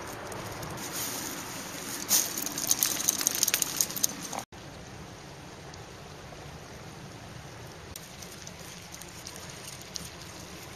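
Scattered clicks and scrapes over outdoor background noise, then an abrupt cut about four seconds in to the steady, even wash of a small river flowing.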